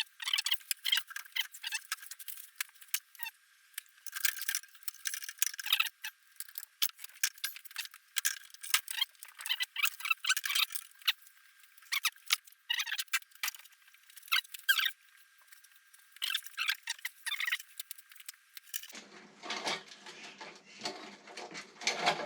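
Dense, irregular clicking, rattling and squeaking of small metal parts and hand tools being handled while working on a motorcycle's front end. The sound is thin with no low end, until about 19 seconds in, when fuller clatter comes in.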